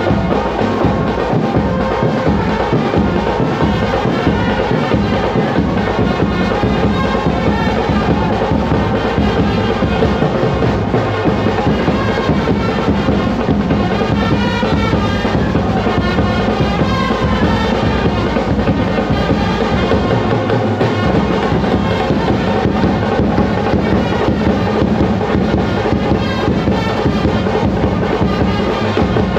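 Brass band playing: trumpets and other horns carry a tune over bass drums and snare drums beating a steady rhythm.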